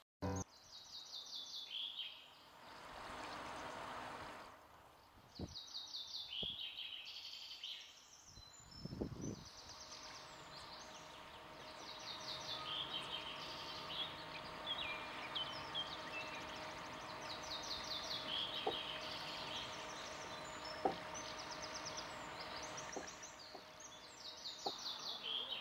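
Songbirds singing over and over in short, rapid trilled phrases. There is a brief rush of noise about three seconds in, a few faint knocks, and a faint steady hum in the second half.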